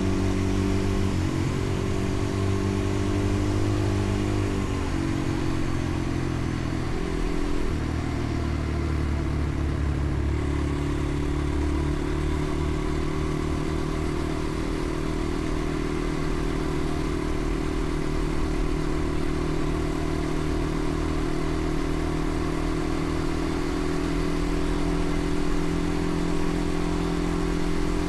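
Motorcycle engine running while riding, its note changing in steps several times in the first ten seconds, then holding steady.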